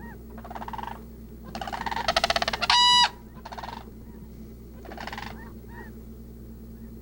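Birds calling: a series of rapid rattling calls, the loudest just before three seconds in running into a short, clear held note, with a few short downslurred chirps between the calls.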